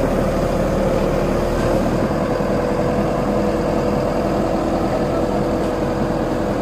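JCB JS140 tracked excavator's diesel engine running steadily, with a steady whine over the engine rumble.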